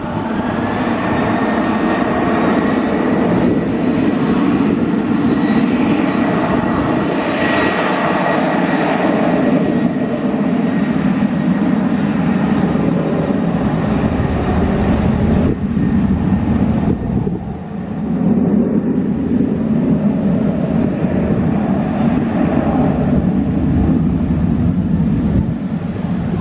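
Twin jet engines of a Lion Air Boeing 737 running at takeoff power: a loud, steady noise with a high whine that climbs slightly just after the start and then holds.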